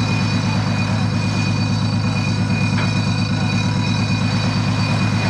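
A 1967 LCVP Higgins landing craft's engine running steadily, with an even, rapid low throb.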